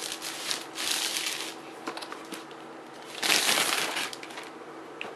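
Clear plastic shrink wrap crinkling as it is pulled off a boxed laptop, in several bursts, loudest about three seconds in.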